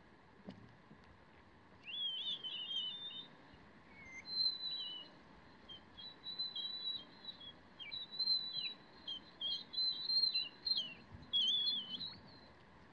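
A songbird singing quick, high, warbling phrases, starting about two seconds in and continuing in short runs.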